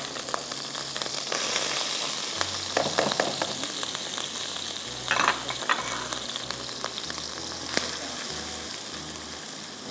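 Chopped onion sizzling steadily as it fries in butter in a nonstick pan, being softened without browning, stirred with a spatula that gives a few brief scrapes.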